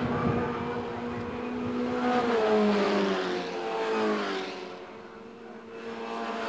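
Formula Ford single-seater racing cars running through a corner. Their engine notes rise and fall in pitch as they pass, loudest about two and a half seconds in, then fading as the cars draw away.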